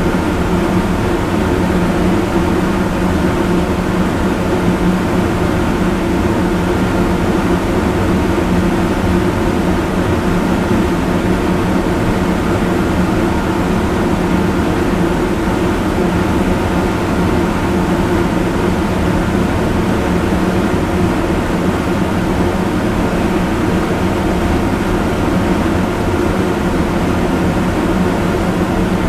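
Extremely loud fan running steadily: an even rush of air with a low hum and several steady tones over it, unchanging throughout.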